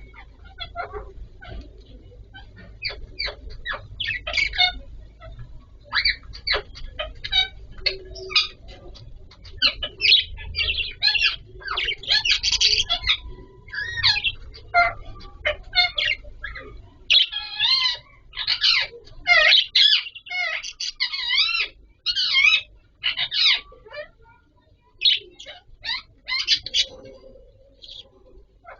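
Budgerigars chirping in quick, irregular runs of short high calls, with some wavering, warbled calls past the middle.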